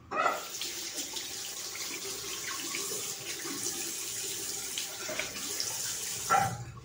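Bathroom tap running into the sink, an even splashing hiss lasting about six seconds, then turned off near the end.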